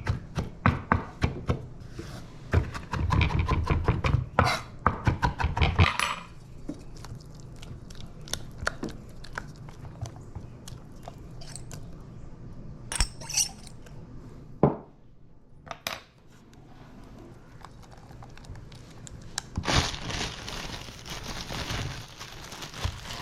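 A metal utensil stirring and clinking against a dish as a sauce is mixed: rapid clicking for the first six seconds, then only occasional clicks. Near the end comes a few seconds of even rustling hiss.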